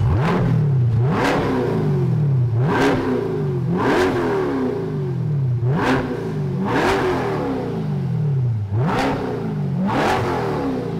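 2021 Corvette C8 Stingray's 6.2-litre LT2 V8 revved in place through a custom stainless steel cat-back exhaust with X-pipe and mufflers. It makes about eight quick throttle blips, each climbing sharply and falling back more slowly to idle.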